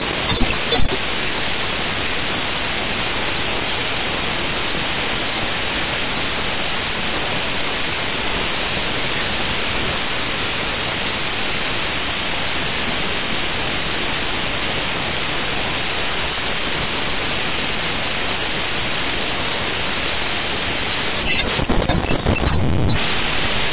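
Steady, dense static hiss: a computer's raw memory contents (/dev/mem) read out as audio samples. A few crackles come just after the start, and near the end the noise turns coarser and lower for a couple of seconds.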